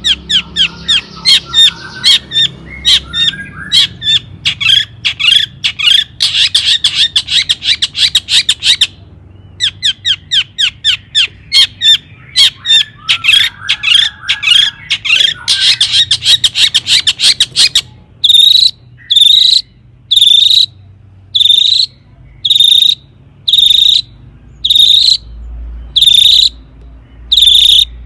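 Long-tailed shrike (cendet) singing: a fast run of sharp, high notes with rasping chatter. About two-thirds of the way through it switches to single short calls repeated evenly, about one a second.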